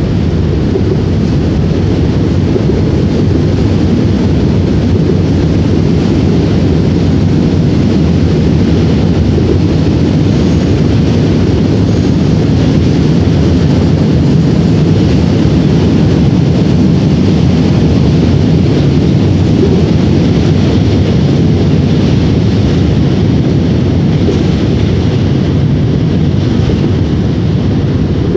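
Wind buffeting the microphone in a steady, loud low rumble, with a fainter hiss above it.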